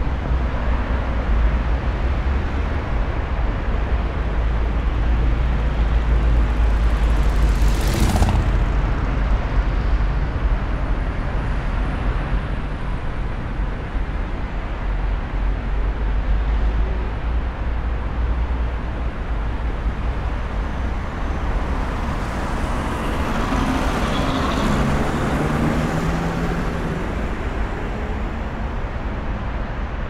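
Road traffic passing on a bridge roadway: a steady low rumble of cars going by, a brief sharp hiss about eight seconds in, and a vehicle engine passing close by near the end.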